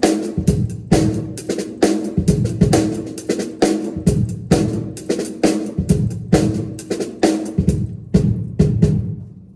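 Drum kit played in a steady, busy beat of strong, evenly repeating hits, stopping just before the end.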